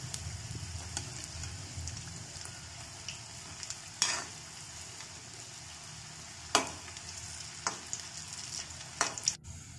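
Wheat-flour pakodas deep-frying in hot oil in a kadai, a steady sizzle. Over it, a few sharp clinks of a metal slotted spoon against the pan, about two to three seconds apart, as the fritters are turned over.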